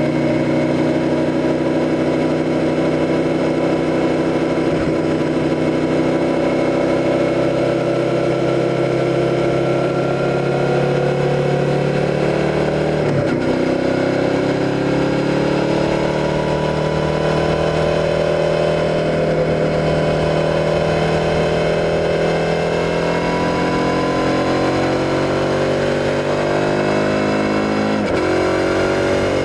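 Suzuki SV650's 645 cc V-twin engine pulling steadily under way. Its pitch holds for the first part, drops sharply once about halfway, climbs gradually, and drops sharply again near the end.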